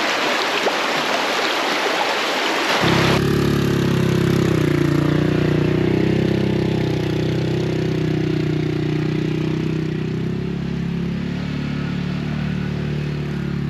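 Rushing creek water for about three seconds, then a sudden switch to a Yamaha Grizzly ATV engine running steadily, its pitch dipping slightly a little after that.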